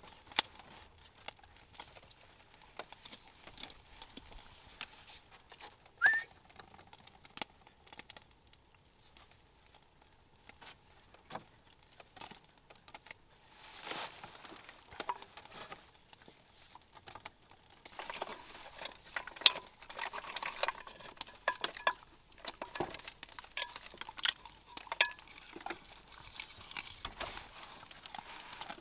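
Scattered small clicks and taps of hands handling food and bamboo utensils on a split-bamboo floor, busier in the second half, with one short squeak about six seconds in.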